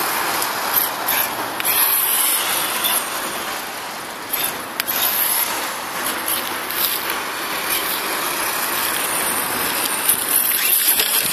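Electric HSP Brontosaurus Pro RC monster truck driving over rough asphalt: a steady rasping hiss of tyres and drivetrain.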